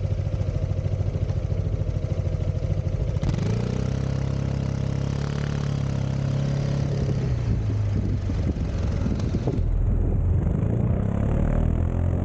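Zontes 350E scooter's single-cylinder engine idling with an even, rapid pulse, then revving up sharply about three seconds in as the scooter pulls away. The revs hold, drop back, and rise again near the end as it gathers speed.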